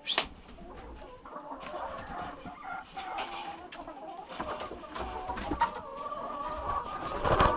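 A flock of Sasso F1 layer hens clucking, with many short calls overlapping.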